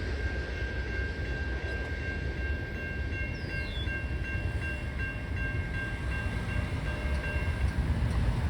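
A train passing over a grade crossing, heard as a steady low rumble, while a Safetran Type 3 E electronic crossing bell rings in rapid repeated strokes. The bell stops near the end, as the crossing clears.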